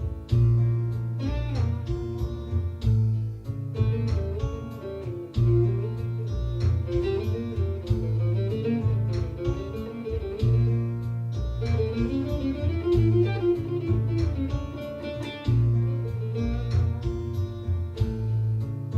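Bağlama improvising in the Hicaz makam: quick plucked runs and ornamented melody over a low bass accompaniment that holds each note for a second or two.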